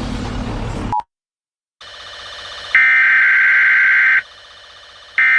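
Emergency Alert System header tones: a harsh, buzzing digital data burst about a second and a half long, then after a one-second gap the start of a second identical burst near the end. Before the bursts, the programme sound cuts off about a second in with a short beep, followed by a moment of silence.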